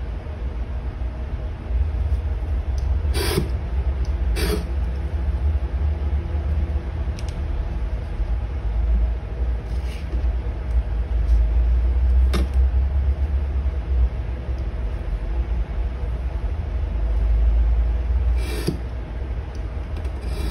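A steady low rumble throughout, with a handful of short sharp clicks and taps from a steel ruler and craft knife being handled on a cutting mat while leather is cut.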